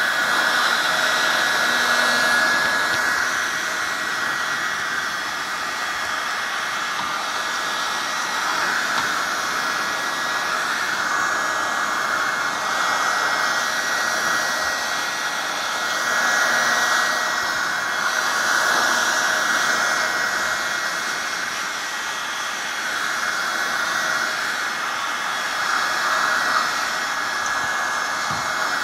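Electric paint stripper (heat gun) running continuously, its fan blowing hot air with a steady whine over the rush of air, warming a plastic radiator grille. The level swells and fades gently every few seconds as the gun is swept over the plastic.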